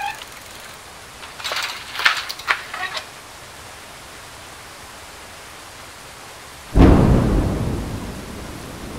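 Steady rain falling, with a few sharp crackles a couple of seconds in, then a loud thunderclap about seven seconds in whose low rumble rolls on and slowly fades.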